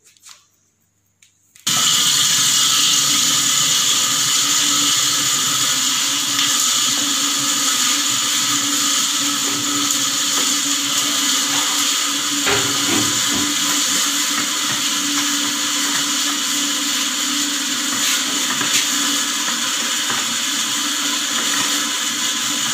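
Electric madhani, a motorised butter churn mounted on a steel pot, switching on about two seconds in and running steadily as it churns.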